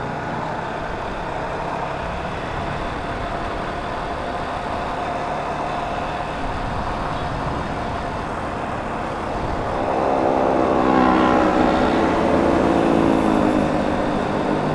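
Motorcycle ridden along a city road: the engine runs steadily under wind and road noise. About ten seconds in, the engine note grows louder and shifts in pitch as the bike picks up speed.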